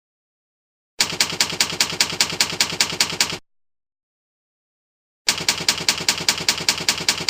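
Typewriter keystroke clicks: two quick runs of about five keystrokes a second, each lasting about two and a half seconds, with silence between them.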